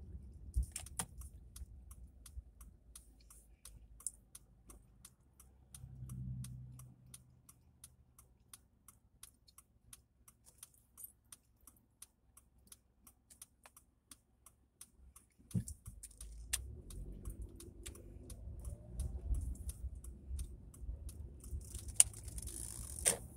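Car turn-signal indicator ticking evenly inside the cabin, about two ticks a second, over a low engine and road rumble. The rumble grows louder about two-thirds of the way through as the car pulls away.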